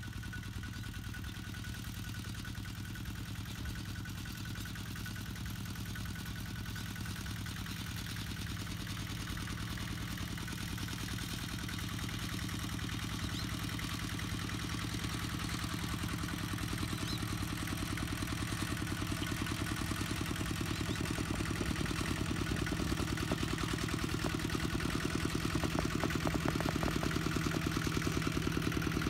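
Kubota tractor engine running steadily under work, growing gradually louder.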